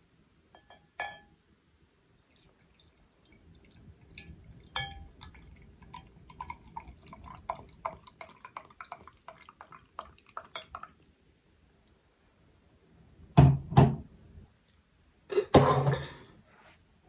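A drink poured from a glass bottle into a stemmed wine glass, trickling and glugging for several seconds, after a light clink of bottle against glass about a second in. Two louder knocks follow near the end.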